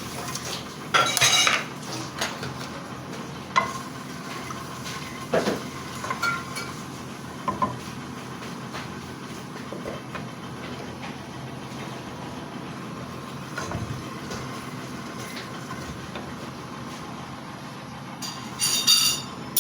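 Whole spices (green cardamom, cinnamon, cloves, cumin seeds) sizzling in hot oil in a cooking pot, with a steady sizzle and a spoon now and then knocking and scraping against the pot. There is a louder clatter of the spoon on the pot near the end.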